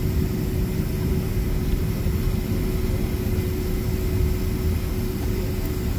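Cabin noise inside a Boeing 767-400ER rolling out after touchdown, slowing and turning off the runway: a steady low rumble with a steady hum.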